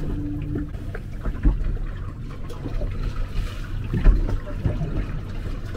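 Ambient sound aboard a small fishing boat on the harbour: a steady low rumble with water noise, and two dull knocks, one about a second and a half in and one about four seconds in.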